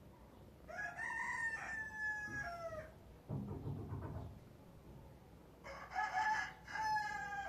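A rooster crowing twice, each crow about two seconds long and dropping in pitch at its end, with a short low rumble between the two crows.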